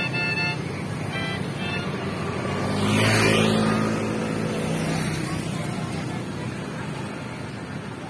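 Short musical notes from a multi-tone telolet bus horn, in two brief bursts in the first two seconds, over steady road traffic. About three seconds in, a vehicle drives past close by, rising and then fading away.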